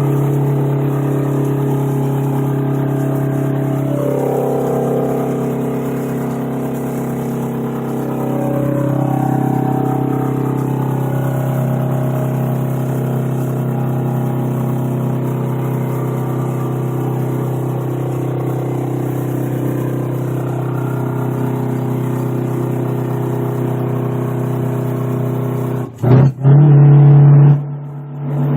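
Straight-piped 8v71 Detroit Diesel two-stroke V8 in a 1980 GMC General semi running with a steady, deep exhaust note that shifts in pitch a few seconds in. Near the end, for about two seconds, the phone's microphone overloads into a very loud distorted burst.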